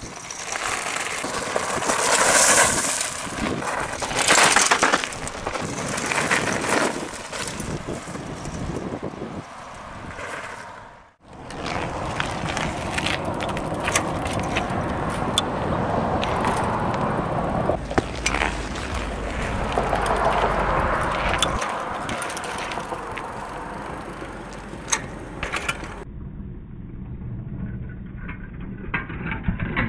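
A bicycle being ridden over grass and concrete: a noisy rolling rush of the tyres with many sharp knocks and rattles of the frame and chain. The sound drops out briefly partway through.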